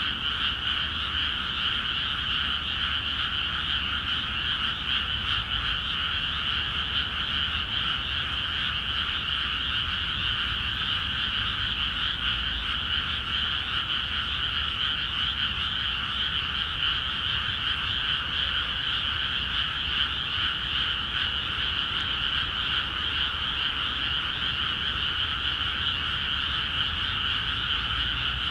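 A dense chorus of many frogs calling at once in flooded rice paddies, a steady, unbroken mass of calls in two pitch bands, one around 1.5 kHz and a higher one around 3 kHz.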